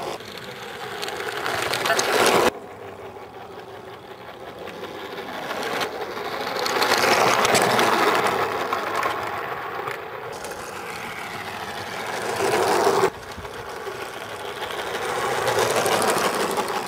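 Battery-powered G-scale model steam locomotive running on garden track, its electric motor and gears running steadily. The sound swells as the engine passes close by several times, with sudden changes between shots.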